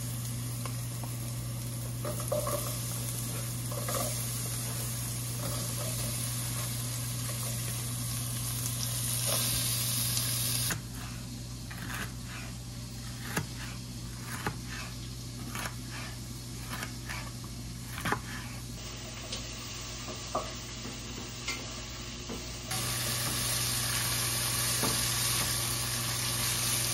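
Sliced onions sizzling in hot olive oil in an aluminium pot. In the middle stretch the sizzle gives way to the quieter, irregular strokes of a knife slicing a green bell pepper on a plastic cutting board, and near the end the sizzling returns as a wooden spoon stirs the onions.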